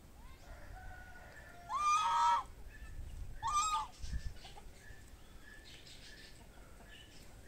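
Farm poultry calling: two loud, harsh calls about two and three and a half seconds in, each shorter than a second, then fainter short chirps from other birds.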